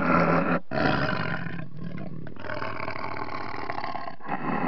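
Lion roaring, in several stretches broken by short gaps.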